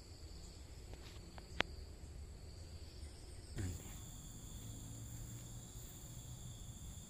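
Faint, steady chorus of insects shrilling high in the palms, with one sharp click about a second and a half in. The chorus changes in pitch about halfway through.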